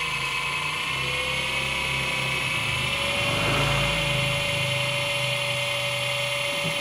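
Groschopp 250 W three-phase AC motor with worm gearbox running on a variable-frequency inverter as its speed is turned up to maximum; its whine rises in pitch over the first few seconds, then holds steady at top speed, about 285 rpm at the gearbox output shaft.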